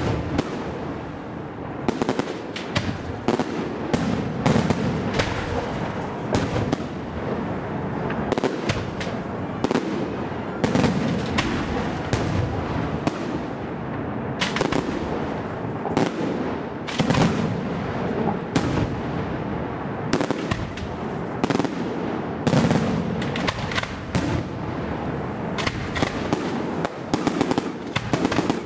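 Aerial firework shells bursting overhead in a dense, unbroken barrage: many sharp bangs, one after another, over a continuous din of bursts.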